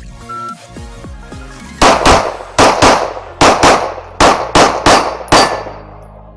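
A shot-timer start beep, then a Springfield Echelon pistol with a Patriot CNC compensator firing about ten rapid shots, mostly in quick pairs, over background music.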